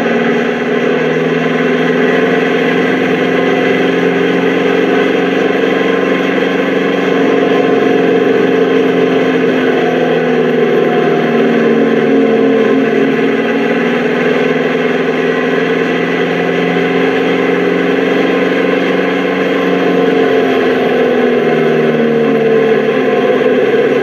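Fordson Major tractor's diesel engine running steadily as the tractor drives along the road, heard from the cab, its pitch rising and falling slightly with the throttle and getting a little louder about seven seconds in.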